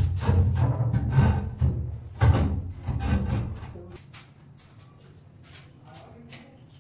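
Background music with a heavy drum beat that cuts out about four seconds in, leaving faint scraping and light knocks of stone slabs being handled and worked at the edge.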